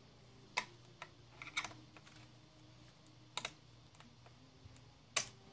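Light plastic clicks and taps from fingers working at a laptop keyboard's ribbon-cable connector latch: a few scattered clicks, a quick double click a little after a second in, and the loudest just before the end.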